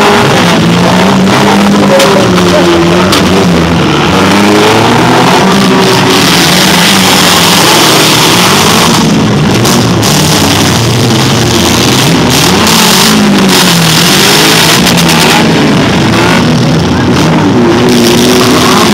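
Several demolition derby cars' engines revving up and down hard and loud, with occasional bangs of cars ramming each other.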